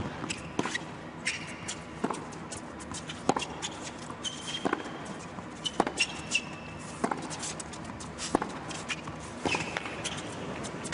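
Tennis rally on an indoor hard court: sharp racquet-on-ball strikes and ball bounces, a little over a second apart, with a few short high squeaks of tennis shoes on the court.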